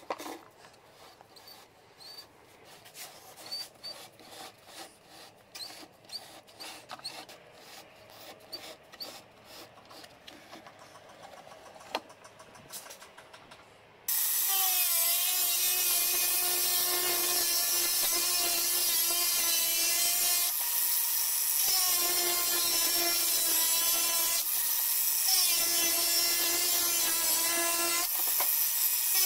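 Light clicks and scratches of a plastic basin being handled and turned against a marker. About halfway through, an angle grinder starts and runs loudly, with a steady whine and hiss, cutting through the plastic basin and changing briefly a few times as the cut goes on.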